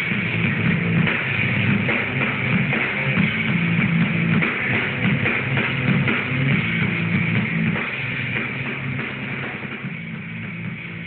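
A rock band playing live in a small room, a drum kit and a guitar together, picked up on a phone's microphone. The playing grows quieter over the last few seconds.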